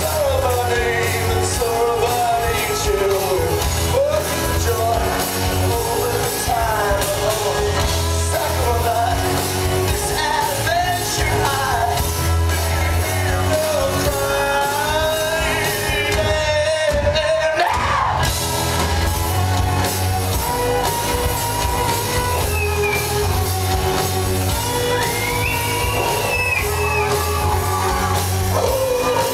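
Rock song with a singer's shouted, sung vocals over a full band.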